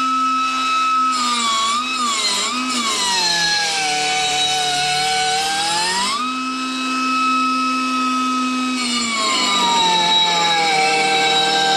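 Grinder motor whining as it grinds a lawnmower blade still mounted on the mower. Its pitch sags as the wheel bears on the blade, comes back up about six seconds in, then drops again under load near the end.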